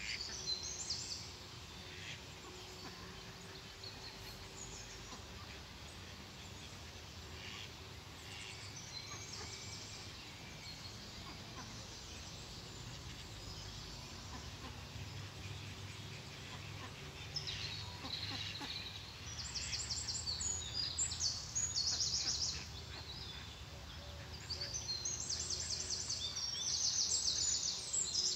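Small songbirds singing fast, high trills in several bursts, loudest in the last third, over steady outdoor background noise with a faint hum.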